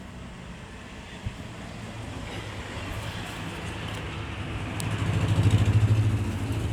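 A motor vehicle engine running and drawing closer: a low hum that grows louder, loudest about five to six seconds in, then eases off.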